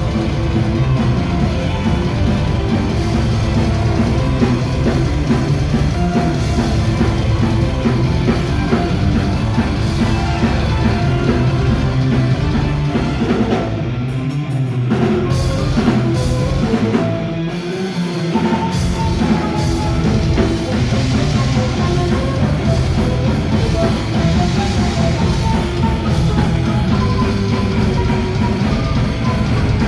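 Rock band playing a heavy song with distorted guitars and a full drum kit. About halfway through, the drums and bass drop out for a few seconds before the full band comes back in.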